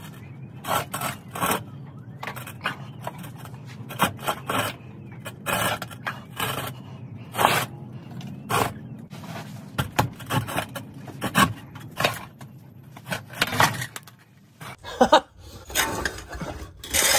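Concrete bricks being pulled and slid out of a stack one after another: repeated irregular scrapes and knocks of brick on brick.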